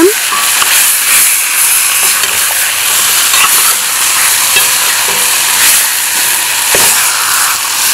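Chicken legs frying in curry and oil in a stainless steel pot, a steady sizzle, while a metal spoon stirs them with light scrapes against the pot.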